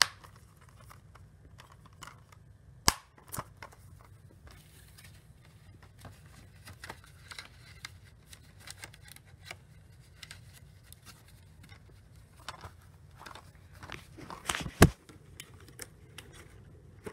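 Handling noises from a plastic Blu-ray case and the camera: scattered sharp clicks and light rustling over a faint low hum, with one sharp click about three seconds in and a cluster of louder knocks near the end.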